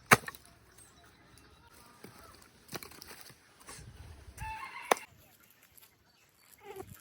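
A sharp knock right at the start, then a few fainter knocks, and a short chicken call about four and a half seconds in.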